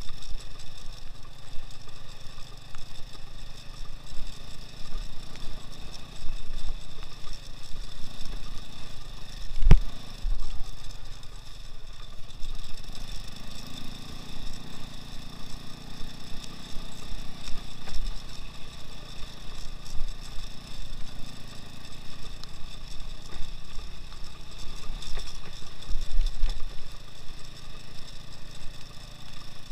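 Engine of a two-wheel-drive off-road motorcycle running at a steady, even speed while riding over rough ground, with scattered low thumps and one sharp knock about ten seconds in.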